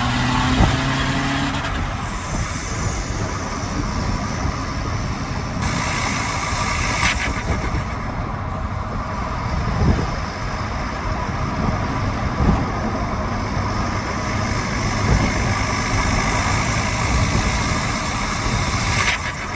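Skoda Octavia vRS 2.0 TDI diesel under way, its engine and open pod-filtered turbo intake running amid steady road and wind noise, with a few short louder peaks.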